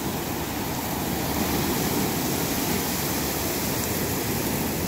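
Ocean surf breaking and washing into the shallows, a steady rushing noise.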